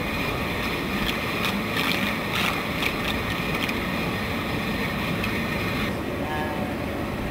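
Floating jet aerator running: steady motor noise with water churning and splashing where its jet discharges into the channel, with a few crackling splashes in the first half. The hiss quietens slightly about six seconds in.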